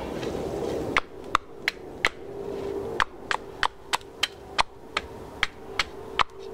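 A tool striking something hard over and over, about fourteen sharp knocks at two to three a second with a short pause partway through, as when hammering or chopping at a camp.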